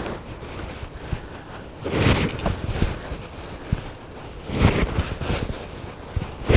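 Fence wire and a plastic-insulated ratchet strainer being handled, with rustling and scraping in a few short bursts and scattered light clicks.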